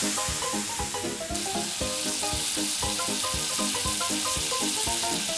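Flour-coated crabs deep-frying in hot oil in a miniature pan, a steady sizzle, over light background music with a steady beat.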